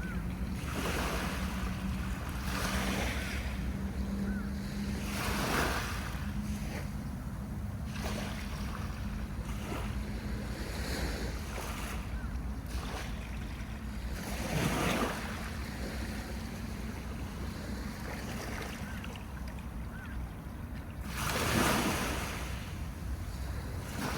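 Sea waves washing onto a beach, each wash swelling and fading every few seconds, the loudest near the end.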